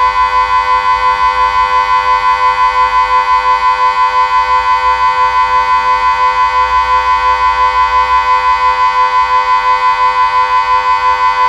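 Delta 6 civil-defence siren sounding Austria's 'Warnung' signal, the long steady tone that warns of approaching danger. It holds one fixed pitch with a fast, even pulsing of about four to five beats a second.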